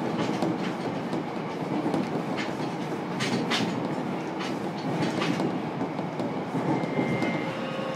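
Running sound inside a JR Kyushu 303 series electric train's motor car, MoHa 303-1, between stations: a steady rumble of wheels on rail, with a run of sharp wheel clicks over rail joints in the middle. A faint high steady tone comes in near the end.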